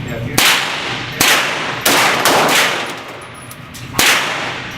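Four gunshots from a handheld firearm at irregular spacing, each followed by a ringing echo.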